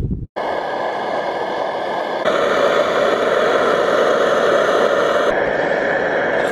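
Liquid-fuel backpacking stove burning under a pot, with a steady, loud hiss that shifts slightly in tone about two seconds in and again about five seconds in.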